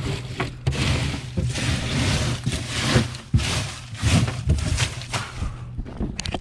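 Irregular rustling, scraping and knocking of loose debris being handled and moved about, with several short knocks.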